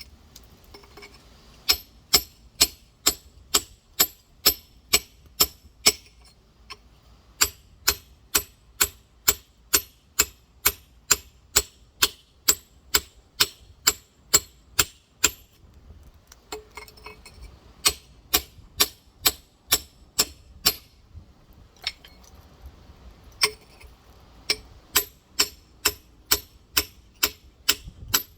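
Rock hammer striking a large geode, sharp metal-on-stone taps at about three a second, in runs broken by a few short pauses.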